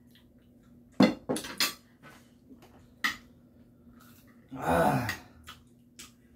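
Tableware clinking: a small ceramic bowl and metal chopsticks knocking against plates, with a quick run of three sharp clinks about a second in and another about two seconds later. A short voice sound that falls in pitch comes a little before the end.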